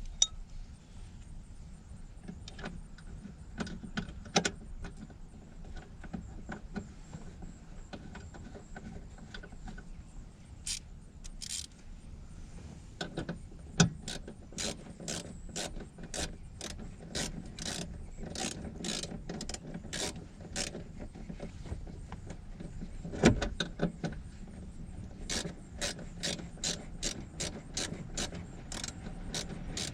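Hand-tool work: scattered sharp clicks and light knocks, becoming a fast, even run of clicks in the second half, with two louder knocks about 14 and 23 seconds in.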